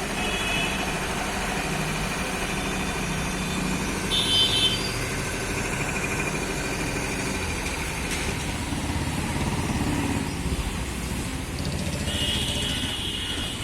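Motor vehicle engine running amid steady road traffic noise, with short high-pitched tones sounding briefly about four seconds in and again near the end.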